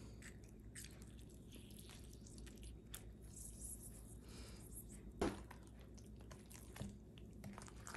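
Faint wet squishing and small clicks as a Meyer lemon half is squeezed by hand over a plastic tub of tzatziki, with one sharper knock about five seconds in.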